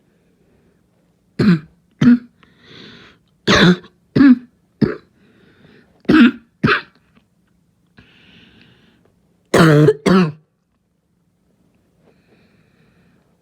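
A person's harsh, barking cough, nine coughs in bouts of two or three, with breaths drawn in between the bouts.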